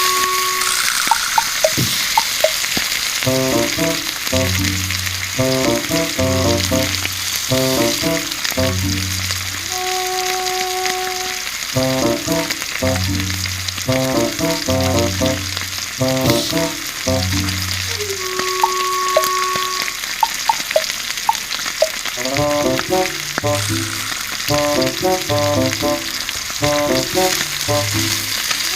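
Steady sizzling and crackling over a campfire, with a few sharp pops about a second in and again near the twenty-second mark, under soft background music with a repeating melody and held bass notes.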